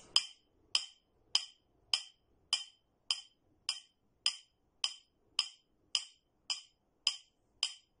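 A small glass sauce bottle tapped in a steady beat, about one and a half clinks a second, each a short, high, ringing clink. The taps keep time in three-four.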